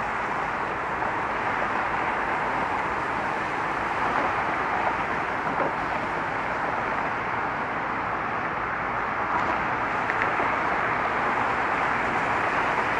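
Steady rush of road traffic from a stream of cars crossing a bridge, an even wash of noise with no single vehicle standing out.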